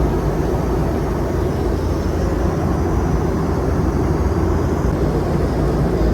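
Steady cabin noise of a Boeing 717 in flight: a continuous low drone of airflow and its rear-mounted Rolls-Royce BR715 engines.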